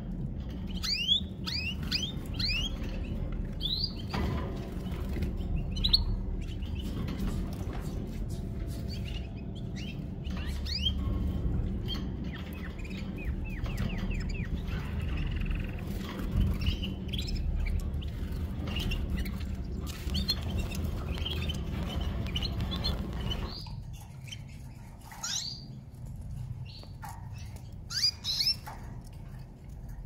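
Several domestic canaries in a cage giving short, quick chirping calls, scattered irregularly, over a low background rumble that drops away about three-quarters of the way through.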